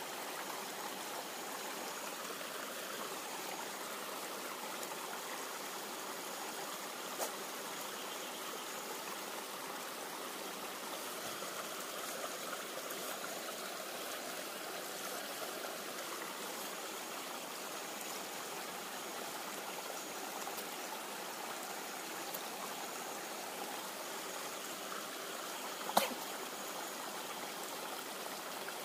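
Steady rush of a stream running, with two sharp pops from the wood fire, a small one about seven seconds in and a louder one near the end.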